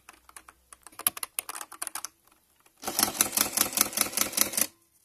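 Keys of a Sharp Compet desktop printing calculator clicking as numbers are tapped in. Then its print mechanism chatters in a fast, even rattle for about two seconds, printing onto the paper tape.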